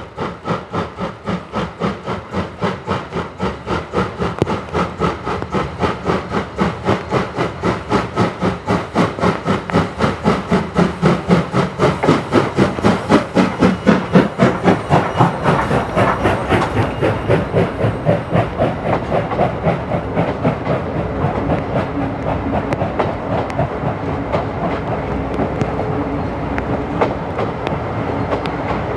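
Class C57 steam locomotive working past, its exhaust chuffing in even beats about three to four times a second and growing louder to a peak about halfway through. The chuffs then give way to a steadier rattle of train wheels over the rails.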